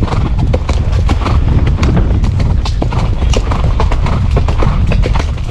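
A horse's hooves striking a leaf-covered dirt woodland track in a quick, continuous run of hoofbeats, picked up from the saddle over a steady low rumble.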